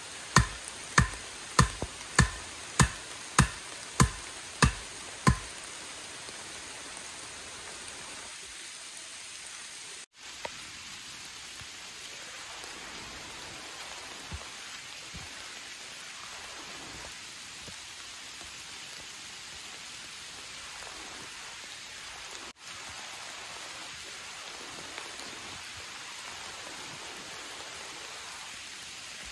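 A sharpened wooden post being pounded into the ground: about nine hard knocks, a little under two a second, over the first five seconds. Then steady rain pattering for the rest.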